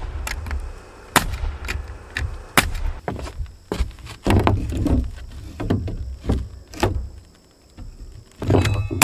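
New pine roof-deck boards being handled and set in place: a dozen or so irregular sharp wooden knocks and clatters over a low rumble.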